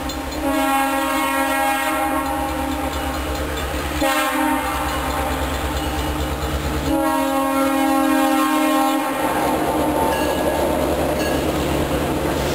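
Freight train's locomotive air horn sounding a chord of several tones in three long blasts for a grade crossing, the last blast the loudest. From about nine seconds in, the horn stops and the rumble and clatter of freight cars rolling over the crossing takes over.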